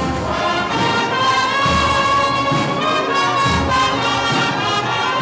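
Brass band playing a slow processional march, trumpets and trombones holding sustained notes over low drum beats.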